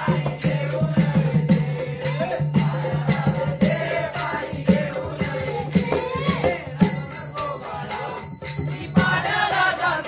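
Devotional bhajan being sung over a steady held low drone. Metallic hand cymbals strike an even beat about three times a second.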